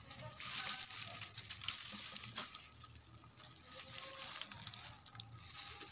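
Dry twigs and dead leaves rustling and crackling as a small child's hands push into and pull at a brush pile, a dense run of small snaps and rustles.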